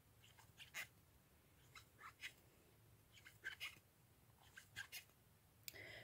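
Near silence with faint, scattered soft ticks and rustles from a metal crochet hook pulling yarn through single crochet stitches.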